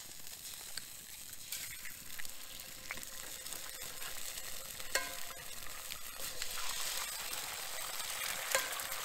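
Eggs frying in bacon grease in a cast-iron skillet: a steady sizzle, broken by a few short, sharp clicks.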